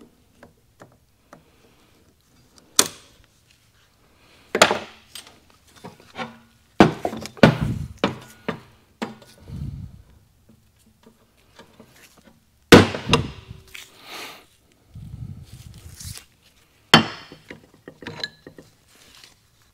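Steel transmission parts, the planetary gear set among them, knocking and clinking as they are handled during a teardown: a string of separate sharp metal knocks, some ringing briefly.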